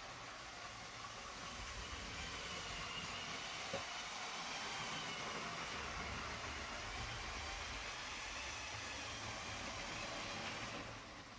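Lego 7897 passenger train running on plastic 9V track: a steady whirring hiss of its Power Functions motor and wheels, with a faint wavering high whine, easing off slightly near the end.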